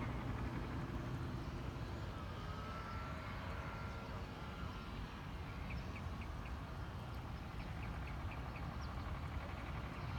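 Outdoor ambience: a steady low rumble, with two quick runs of faint short chirps midway and later, likely a bird's.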